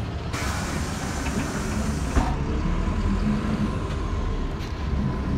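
City bus heard from inside: a steady low engine rumble, a hiss of air lasting nearly two seconds that ends in a knock, then a steady whine over the rumble.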